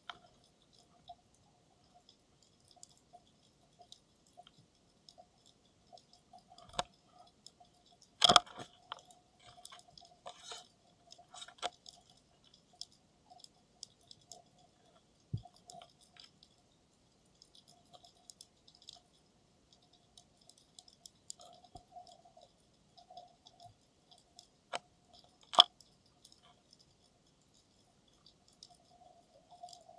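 Underwater ambience heard through a camera's sealed dive case: irregular clicks and crackles with a few sharper snaps, the loudest about eight seconds in and again near the end, over a faint steady hum.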